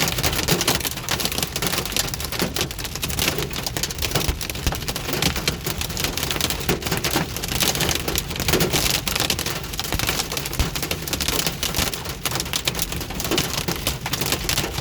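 Hail, about quarter-sized, pelting a vehicle, heard from inside: a dense, unbroken clatter of hailstones striking the roof and glass.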